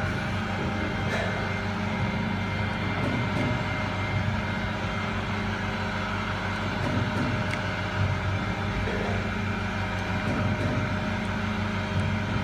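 CNC sharpening machine for carbide-tipped circular saw blades running, a steady machine hum with several steady tones over a noisy haze, and a few faint ticks.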